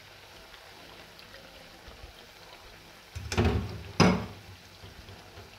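Potato pakoras sizzling in hot deep-frying oil, a faint steady hiss. Two loud clatters about three and four seconds in, the second sharp and short: a metal wire skimmer knocking and scraping against the pan.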